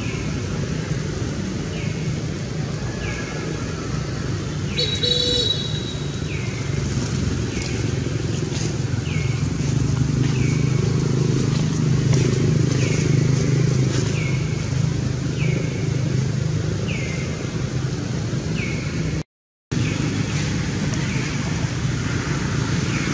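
Steady low rumble of distant vehicle traffic, with a short high falling chirp repeating about once a second. A brief high squeal comes about five seconds in, and the sound cuts out for a split second near the end.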